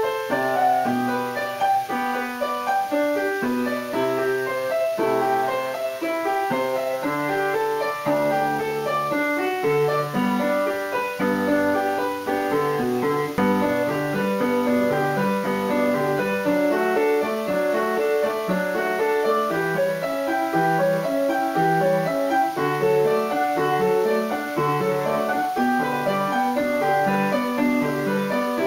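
Background piano music, a continuous flow of single notes and chords.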